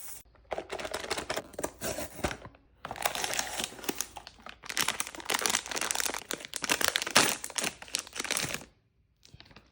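Crinkly plastic packaging being handled and opened around a blind-box figure: a long run of dense crackling, with a short break about three seconds in, that stops shortly before the end.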